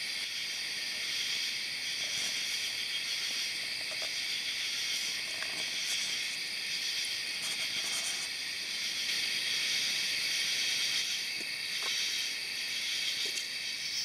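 Steady, high-pitched chorus of crickets and other night insects, several shrill tones held without a break.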